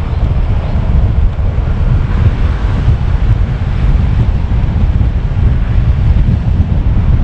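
Wind buffeting the microphone of a camera mounted on a moving car, a loud, uneven low rumble over the steady noise of the car driving.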